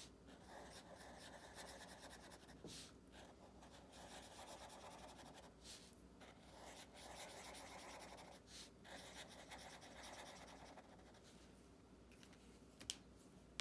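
Faint scratching of a felt-tip marker colouring in small circles on paper, in short uneven scribbling bouts. A sharp click near the end as the marker is capped.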